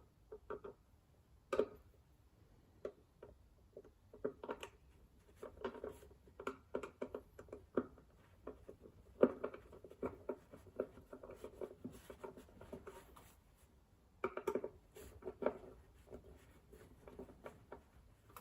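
Irregular small clicks, taps and scraping of hand work, fitting a handle to a wooden drawer front with small bolts.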